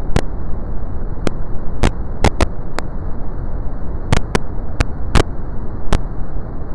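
Brown noise: a steady, deep rushing hiss weighted to the low end. About a dozen sharp clicks break through it at irregular intervals.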